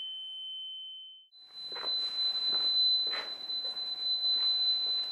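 Loudspeaker driven by a signal generator sounding a steady pure tone at 3061 Hz that cuts off just over a second in. After a brief gap, a higher steady tone at about 4020 Hz starts and holds.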